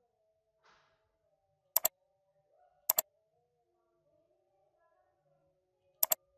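Computer mouse button clicked three times, each click a quick press-and-release double tick: two about a second apart and a third near the end.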